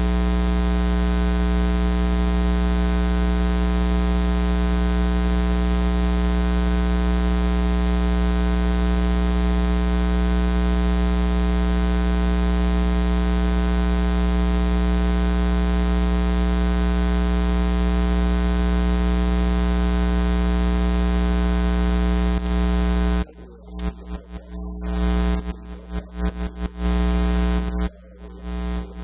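Loud, steady electrical mains hum: a buzzy, unchanging hum with many overtones. About 23 seconds in it starts cutting in and out raggedly.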